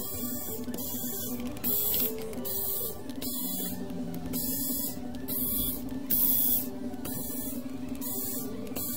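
Cordless electric screwdriver backing out the screws of a laptop's bottom cover, its hiss coming in short regular pulses a bit more than once a second, over a steady low hum.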